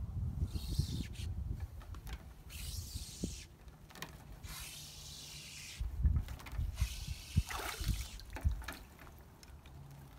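Wet magnet-fishing rope being hauled up hand over hand out of the water, with repeated bursts of dripping and swishing water. A few sharp low thumps come between about six and eight and a half seconds in.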